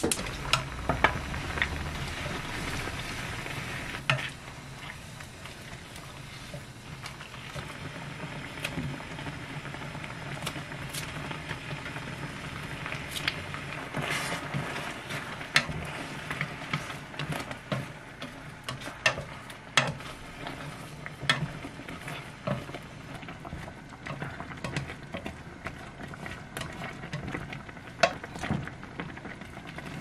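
Tteokbokki of rice cakes in soy broth and chili sauce sizzling and bubbling in a frying pan. It is louder for the first few seconds as the broth goes into the hot pan. Wooden chopsticks tap and scrape against the pan as it is stirred.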